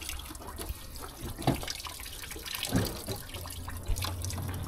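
Sludgy brown engine coolant running out in a thin, steady stream from the bus's opened coolant tank as the system is drained, with a few small clicks.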